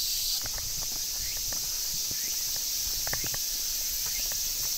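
Steady high-pitched chorus of summer cicadas, with a scattered few light clicks, several close together about three seconds in.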